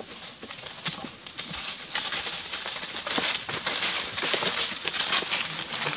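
Goats' hooves and footsteps crunching and rustling through dry fallen oak leaves, a dense crackle that gets louder about two seconds in as a goat comes up close.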